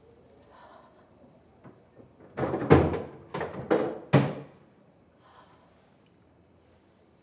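Heavy bangs on a toilet cubicle door, five in about two seconds, starting about two and a half seconds in.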